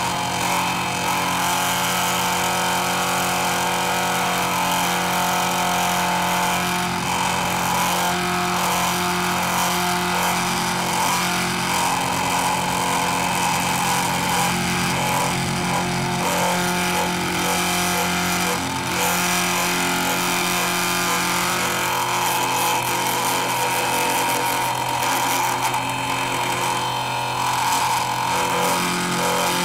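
Milling machine running steadily under load as it cuts a workpiece held on a rotary table: a constant motor hum with a cutting noise on top.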